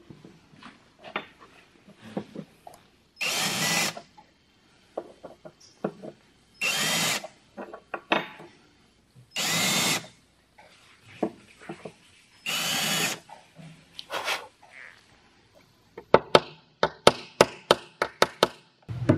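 Cordless drill running in four short bursts of about a second each, about three seconds apart. Near the end, a small hammer starts tapping quickly on a steel trigger plate set on a wooden bench, about three taps a second.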